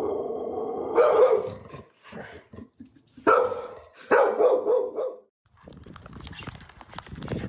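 A dog giving a held whining note, then three loud barks, the first about a second in and the others about a second apart. A stretch of rapid clicking and scuffling noise follows near the end.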